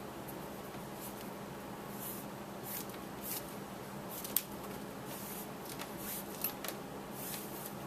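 Nylon paracord being pulled through a knot and dragged across a desk: faint, irregular swishes and rasps, with a sharper one about four and a half seconds in, over a steady low hum.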